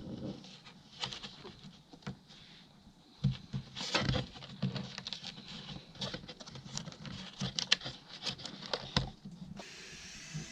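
Irregular small clicks, taps and knocks of pipe and fittings being handled and pushed through a bulkhead fitting. A steady hiss comes in near the end.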